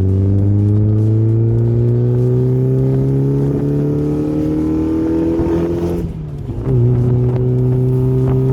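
Mazda MX-5 NB's four-cylinder engine through a loud homemade exhaust, pulling under acceleration: the engine note rises steadily for about six seconds. It then drops away briefly at a gear change and carries on at a steady pitch.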